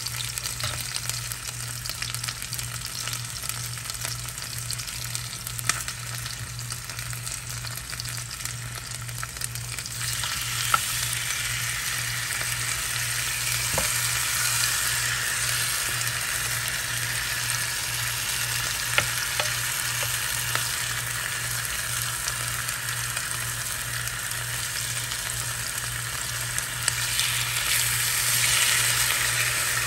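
Chicken drumsticks sizzling in hot olive oil on a grill pan, with a few sharp clicks of metal tongs against the pan as pieces are laid in. The sizzle gets louder about a third of the way through, with a steady low hum underneath.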